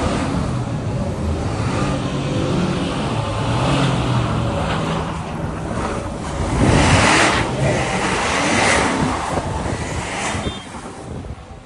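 A vehicle running, with engine and rushing road-and-wind noise. A louder rush swells about seven seconds in.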